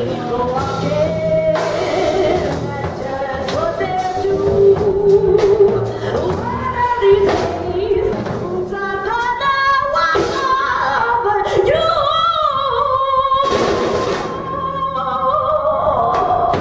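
Small band playing live: a woman sings a melody with long sliding notes over resonator guitar, electric guitar and drum kit with cymbals.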